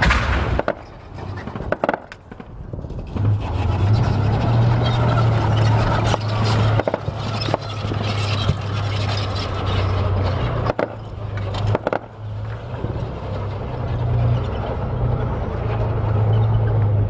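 Armoured vehicle engine running with a steady low drone that swells and fades, and a few sharp cracks over it.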